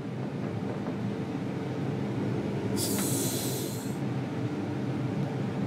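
Steady machine hum of laboratory equipment, with a hiss lasting about a second roughly three seconds in.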